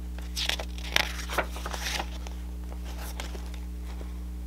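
Pages of a paper picture book being handled and turned: a run of paper rustles and soft taps over the first two seconds, the sharpest about a second in, then only a steady low hum.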